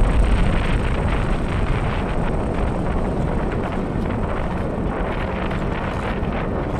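Wind buffeting the microphone of a fast-moving, low-mounted camera: a steady rush of noise with a deep rumble underneath, heaviest near the start.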